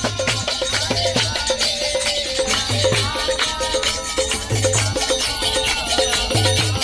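Group kirtan chanting: voices singing in chorus over a steady rhythm of mridanga drum beats, ringing kartal hand cymbals and hand clapping.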